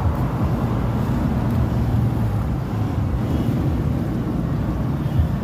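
Suzuki Carry engine running and being revved, then easing back, freshly treated with XADO engine treatment against its vibration and knock.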